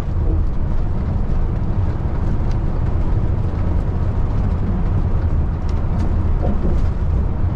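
Steady low rumble of a Peterbilt 579 semi truck cruising, heard from inside the cab: Cummins ISX15 diesel engine and road noise.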